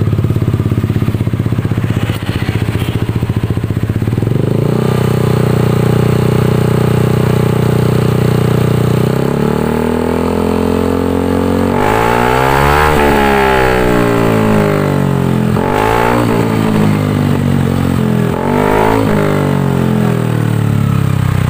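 Scooter engine running through an F2racing Trioval M.1 aftermarket silencer. It idles, holds a higher steady speed for about four seconds, settles back, then is revved in three throttle blips, the pitch rising and falling with each, before returning to idle.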